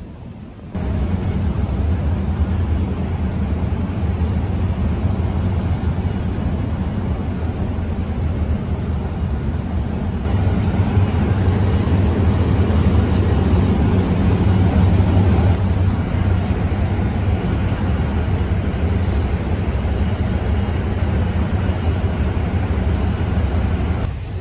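Diesel train engine running steadily with a low, even hum, heard around the locomotive and passenger cars at a station platform.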